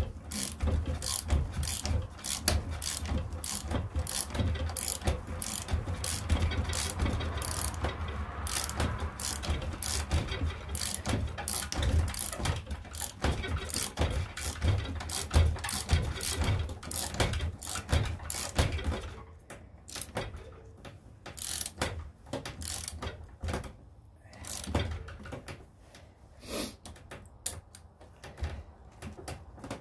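Thread tap being turned by hand into a Briggs & Stratton engine's unthreaded mounting-bolt hole, cutting threads with rapid clicking and grinding. About two-thirds of the way through, the clicking thins out to scattered clicks with short pauses.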